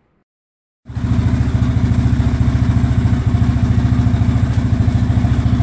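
Yamaha Raptor 350's single-cylinder four-stroke engine running steadily with an even, rapid beat, coming in abruptly about a second in after near silence.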